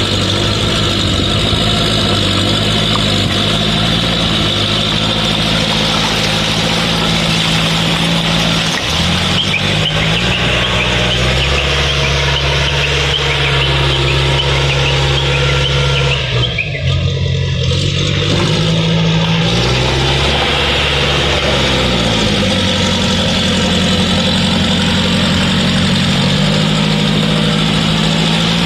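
Backhoe loader's diesel engine running loud, its pitch stepping down and up several times as the engine speed changes, with a short dip about two-thirds of the way through.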